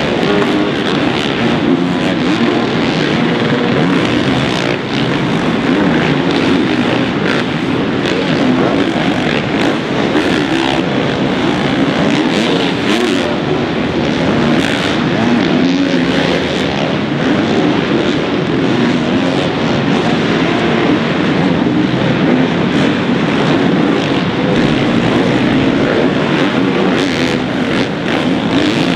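Motocross dirt bikes racing around a supercross track, their engines revving up and backing off continuously as the riders throttle through corners and jumps. More than one bike is heard at once.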